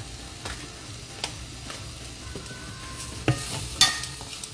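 Metal spoon stirring and scraping curry masala frying in a stainless steel frying pan, with a light sizzle and scattered clinks of the spoon against the pan. The loudest two clinks come near the end.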